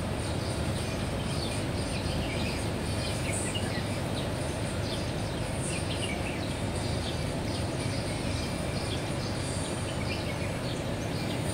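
Street ambience: a steady low rumble of city traffic, with short high bird chirps now and then.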